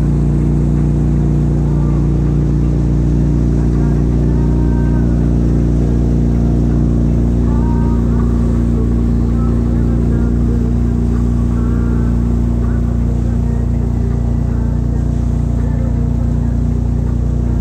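Wake boat's inboard engine running at a steady towing speed, a constant low drone, over the churning wake water at the stern.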